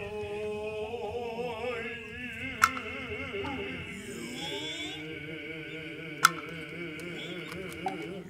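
Noh music: drawn-out, wavering vocal chanting and calls with a high steady tone behind, punctuated by two sharp strokes of the kotsuzumi shoulder drum a few seconds apart.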